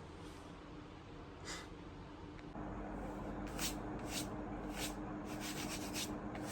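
Quiet room tone. Partway through, a steady low hum comes in, followed by a pen scratching on paper in short strokes.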